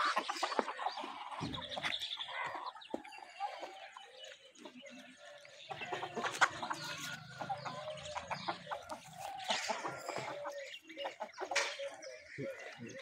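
A flock of chickens and roosters clucking, with many short, scattered calls.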